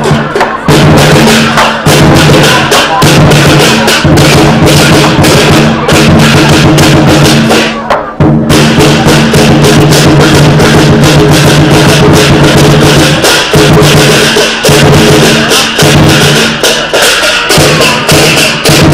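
Southern Chinese lion dance percussion: a big drum with clashing cymbals and a ringing gong, beaten in a fast, continuous, very loud rhythm. The beat breaks off briefly about eight seconds in, then resumes.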